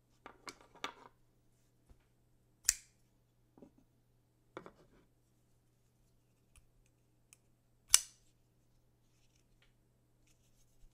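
Rike Made Ketuo Beetle folding knife being worked by hand: a quick run of light clicks, then two sharp metallic snaps about five seconds apart, the second the loudest, with softer handling ticks between.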